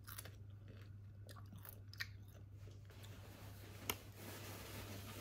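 Faint chewing and biting while eating satay from a skewer, with a few small clicks over a low steady hum.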